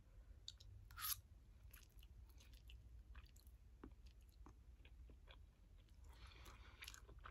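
Faint mouth sounds of someone eating noodles: soft chewing with small wet clicks, a short slurp about a second in and another softer slurp near the end.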